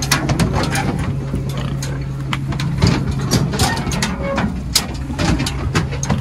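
Truck engine idling steadily, with many irregular clicks and knocks over it.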